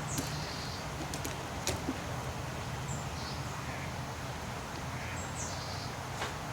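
Birds chirping in the background: a short, high, falling call given twice about five seconds apart, with a few fainter chirps between, over a steady low background hum. Several light clicks and taps of the deadbolt's latch hardware being handled and fitted into the door, mostly in the first two seconds and once near the end.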